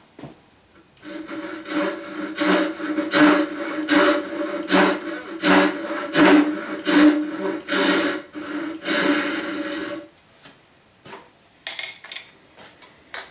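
Hishiki Japanese rip saw cutting a dovetail pin: a regular series of rasping strokes, a little more than one a second, with the blade ringing a steady tone under them. The strokes stop about ten seconds in, followed by a few light clicks.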